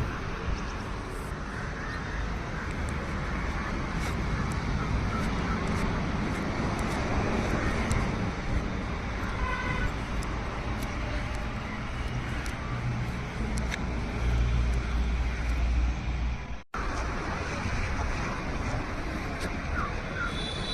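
Steady outdoor background noise with a strong low rumble and a few faint clicks, cutting out for a moment about seventeen seconds in.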